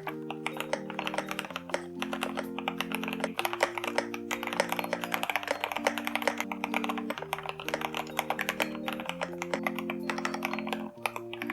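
Fast typing on a mechanical keyboard, a rapid stream of key clacks, over background music of sustained chords that change every second or two.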